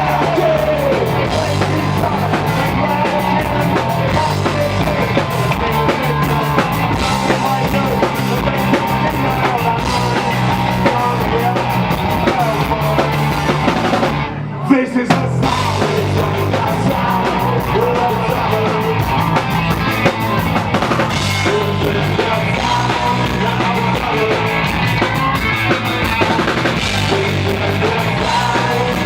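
Punk rock band playing live at full volume, with the drum kit driving a steady beat. About halfway through there is a brief break that ends on a loud hit.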